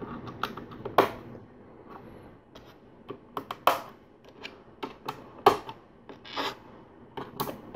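Lego plates and tiles being pressed onto the model's studs: a handful of sharp plastic clicks at uneven intervals, with fingers rubbing and handling the pieces in between.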